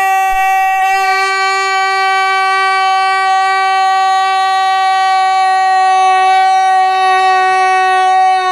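One long, loud horn-like note held at a single steady pitch, beginning to sag in pitch at the very end.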